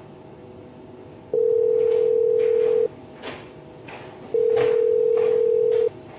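Phone ringing with a plain electronic tone: two long, steady beeps at one low pitch, each about a second and a half long, with a pause of the same length between them.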